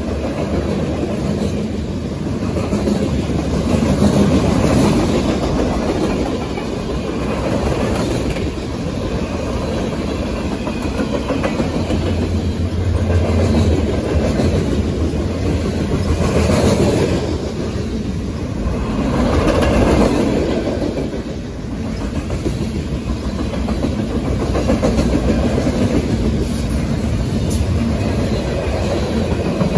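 Freight cars (covered hoppers and boxcars) rolling past close by: a steady rumble with the clickety-clack of steel wheels over the rail joints, swelling and easing every few seconds as each car goes by.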